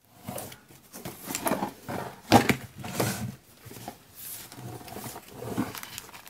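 Irregular knocks, clicks and rustling as a woven box's lid is opened and a clear plastic tray of bagged paper embellishments is handled; the sharpest knock comes about two and a half seconds in.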